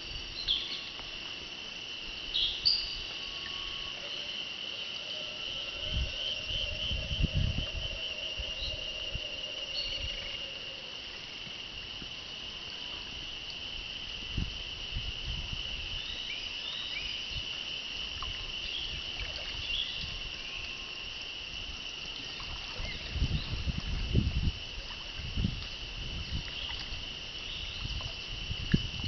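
Steady high-pitched drone of jungle insects, with a few short chirps above it. Now and then low dull sloshes and knocks from paddling the boat through the water, clustered about a quarter of the way in and again near the end.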